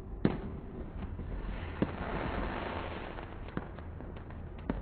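Fireworks: four sharp bangs, the first the loudest and about a quarter of a second in, then others near two seconds, three and a half seconds and the end. A crackling hiss of bursting stars swells in between.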